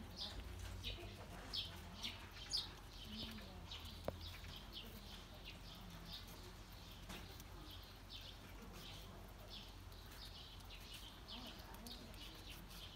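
Small birds chirping: short, high chirps repeated irregularly, several a second, with no song phrase.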